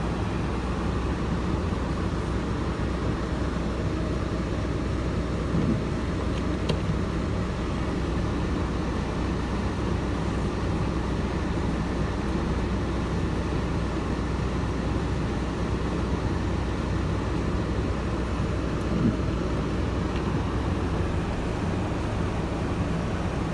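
Steady low rumble of motor vehicles, with a few faint clicks.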